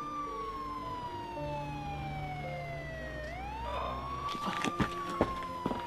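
An emergency vehicle siren wailing. Its pitch climbs quickly and then slides slowly down, twice over, above a low sustained synth music bed. Sharp clicks and knocks come in over the last second and a half.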